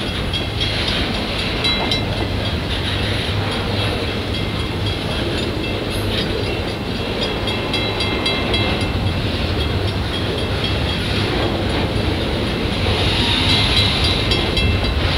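Freight train of flatcars rolling slowly past: a steady rumble and clatter of wheels on the rails, with the level-crossing bell ringing over it in an even, repeating pattern.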